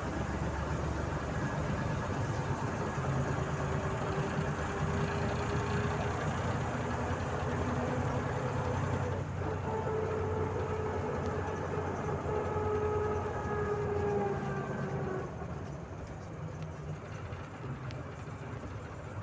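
Volzhanin-5270 city bus heard from inside the cabin while driving: steady engine and road noise with a whining tone from the drivetrain. About three-quarters of the way through, the whine stops and the noise drops as the bus eases off.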